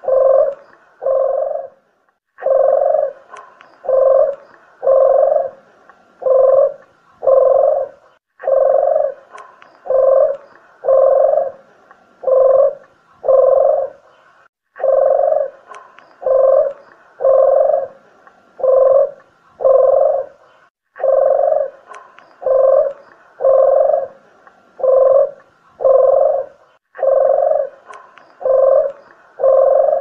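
Spotted dove (tekukur) cooing, played as a bird-lure track: low, even coos in repeated phrases of about seven notes, each phrase followed by a short pause, in a steady loop.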